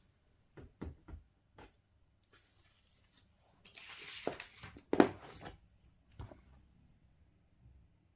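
Handling noises: a few light clicks and knocks, then a spell of rustling with one sharp, loud click about five seconds in, and a last knock a second later. No motor running.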